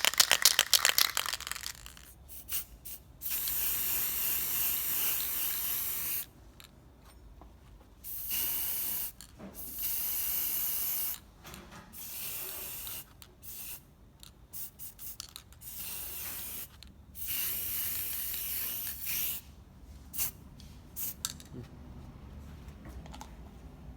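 Several bursts of steady hiss, each one to three seconds long, with scattered clicks and taps between them; a rapid clatter of clicks opens the stretch.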